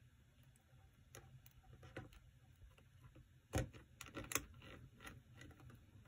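Faint clicks and small handling noises of a wire lead being fastened into a breadboard's screw binding post by hand, with the sharpest click about three and a half seconds in and a few quick ones just after.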